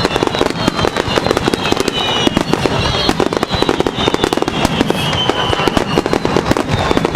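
Fireworks display going off in a rapid, continuous barrage of bangs and crackles with no break.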